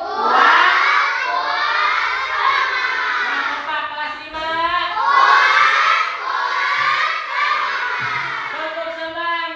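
A class of young schoolchildren shouting together in unison, in two long phrases of several seconds each, with a shorter call near the end.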